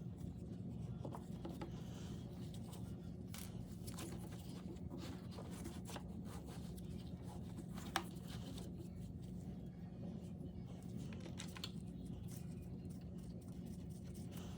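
Faint scrapes and light clicks of small engine parts being handled during reassembly, with one sharp click about eight seconds in, over a steady low hum.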